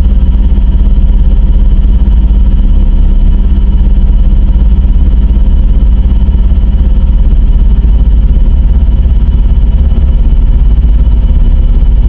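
Fan-made mock emergency-alert (EAS-style) sound: a very loud, distorted electronic drone with heavy bass and several held tones, unchanging throughout.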